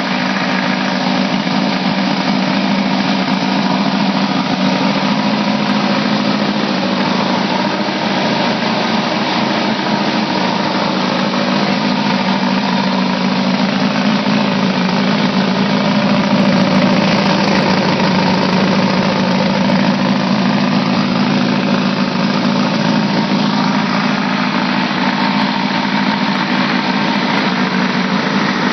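Freshly built air-cooled VW flat-four engine with a four-barrel carburettor and new intakes, idling steadily.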